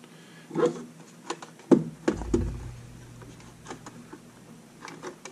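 Handling clicks and knocks as a thin plastic ramp panel is pushed into place under a stringer of a plastic and acrylic housing. There is a sharp click about two seconds in, the loudest sound, followed by a low thump, and a few lighter taps near the end.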